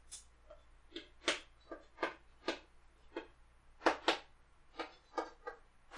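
Chalk writing on a blackboard: a run of short, irregular taps and scratches as each letter is stroked on.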